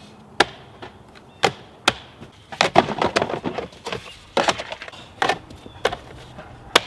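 Hollow plastic jumbo building blocks clacking and knocking as they are set and pressed onto a block wall, in irregular sharp hits.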